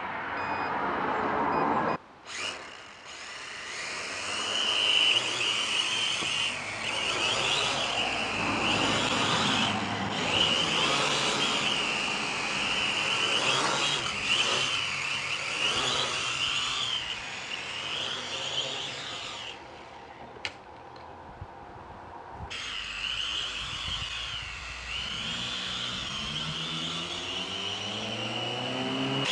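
Kaideng K70C quadcopter's electric motors and propellers whining, the pitch wavering up and down with the throttle. They spin up about two seconds in, cut out for a couple of seconds past the middle, then spin up again.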